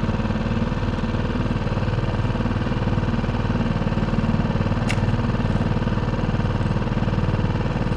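Boat outboard motor running steadily at an even speed.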